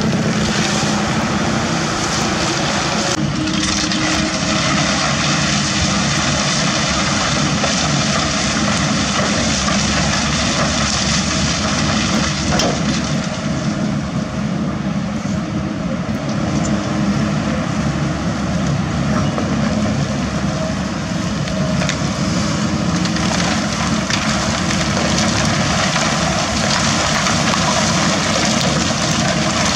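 Kobelco SK200 hydraulic excavator's diesel engine running steadily under working load, a loud continuous drone; the sound changes abruptly about three seconds in.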